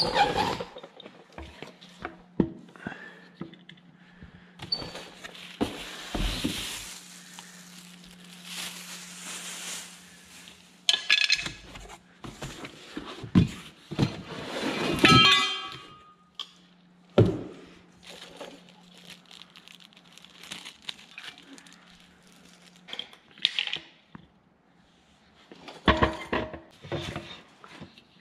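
Plastic Big Blue filter housings and caps being handled and unpacked from a cardboard box: a string of hollow plastic knocks and clicks with stretches of cardboard and packaging rustle. A faint steady low hum runs underneath through the middle.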